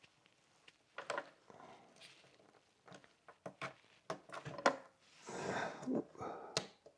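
Hands handling a rubber weather seal and a motorcycle trunk lid: a run of light clicks and knocks, with a short rustling scrape about five seconds in.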